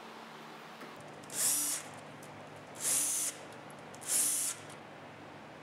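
Cordless drill driver driving screws into plywood in three short runs of about half a second each, with a pause of a second or so between them.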